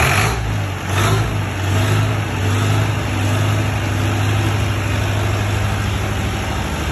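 Diesel engine of a 40 kVA generator set just after starting: it surges briefly in the first second, then settles and runs steadily with an even low hum.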